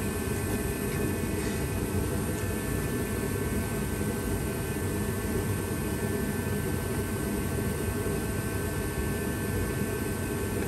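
A steady machine hum with an even hiss and a few faint high steady tones, unchanging throughout.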